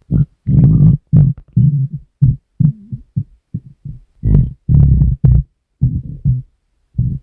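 A hungry person's stomach growling: a quick, irregular run of short, loud, low rumbles, a few with a brief squeaky pitch, broken by short silences.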